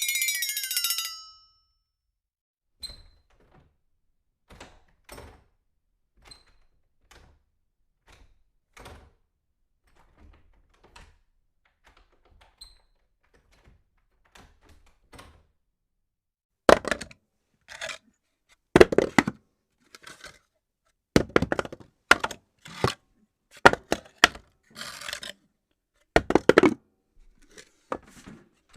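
A series of separate knocks and thuds: faint and spaced out at first, then louder and closer together from past halfway. The tail of a tone sweeping up and down ends about a second in.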